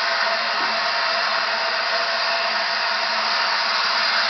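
Steam hissing steadily from LNER Peppercorn Class A1 locomotive 60163 Tornado as it moves slowly away on departure; no separate exhaust beats stand out.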